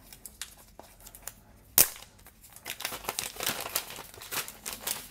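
Clear plastic protective wrap being peeled off a new smartphone, crinkling and rustling through the second half, with one sharp click a little under two seconds in.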